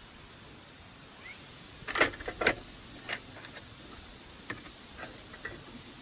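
Firewood burning in a Picogrill-style fire pit: a steady hiss with sharp crackles and pops, two loud snaps about two seconds in and smaller pops after.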